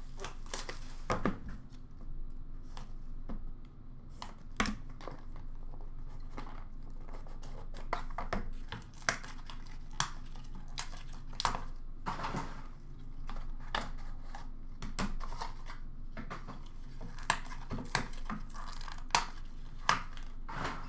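A hobby box of trading cards being unboxed by hand: scattered sharp taps and clicks of cardboard and card holders, with short bursts of tearing and rustling packaging.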